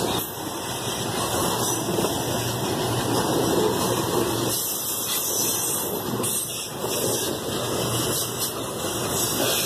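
Freight train of loaded soybean wagons rolling past close by: a steady noise of wheels running on the rails that rises and falls as the wagons go by.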